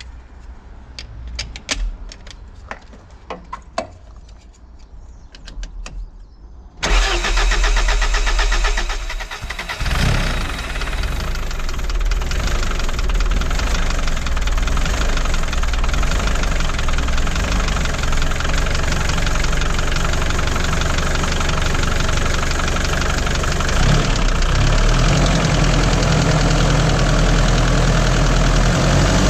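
A few sharp clicks and knocks, then about seven seconds in a diesel forklift engine comes in suddenly and runs steadily, with a brief surge a few seconds later. The engine had a fuel-supply problem: diesel was not reaching it properly.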